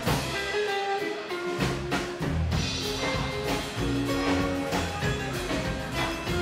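Rockabilly trio playing live: acoustic guitar, slap-style upright double bass and drum kit, in an instrumental passage without vocals. The low end drops away for about a second shortly after the start, then the full band comes back in.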